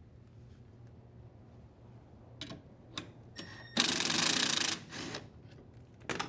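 A cordless impact driver runs in one burst of about a second, hammering against the pulley remover's screw, with a weaker tail and a few sharp clicks of metal tools and parts before and after.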